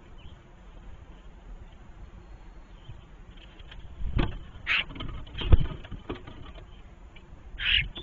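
Common starlings' wings flapping and bumping right at the camera as they come in to a hanging seed feeder: sudden thumps and rustles about four and five and a half seconds in, with two short raspy sounds, one between the thumps and one near the end.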